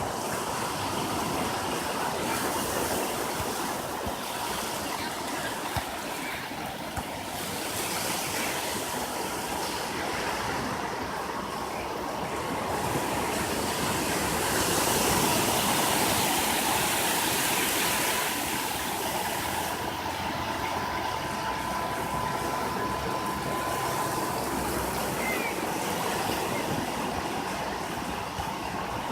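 Atlantic surf breaking and washing up a beach: a continuous rush of waves that swells and eases, loudest about halfway through.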